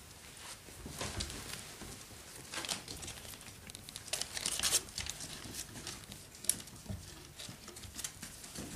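Irregular crinkling and rustling from a seven-week-old Parson Russell Terrier puppy chewing and moving about on fleece bedding, with one sharp click about two-thirds of the way through.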